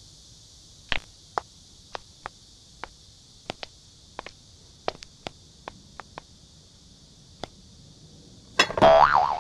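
A mouse at a glass-dish trap propped on a bowl. A run of sharp, irregular clicks over several seconds, then a loud, wavering squeal for under a second near the end, over a steady hiss.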